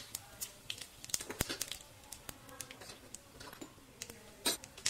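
Cumin seeds crackling in hot oil in a frying pan: sparse, irregular sharp pops. A few louder pops come near the end.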